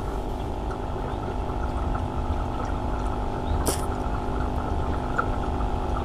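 Sharp single-tub washing machine on its spin setting, draining: a steady hum with water running out of the tub. One sharp click about three and a half seconds in.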